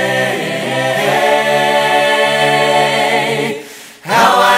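A cappella voices singing a song, holding a long chord on the word "say" that fades out about three and a half seconds in. The next phrase begins just before the end.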